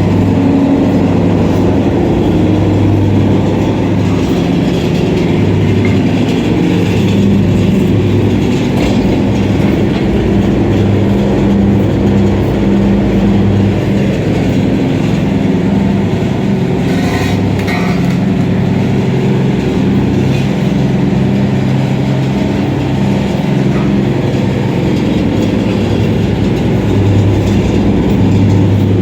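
A 150 kg soybean washing machine driven by an electric motor, running: a steady motor hum under a continuous rattling clatter.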